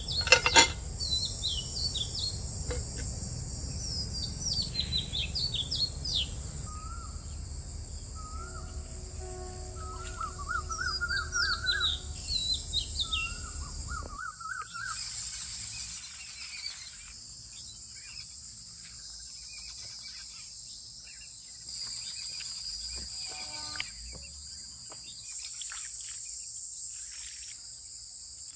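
Birds chirping and trilling over a steady high drone of insects. A metal pot lid clanks once at the very start, and a low rumble under the first half stops about fourteen seconds in.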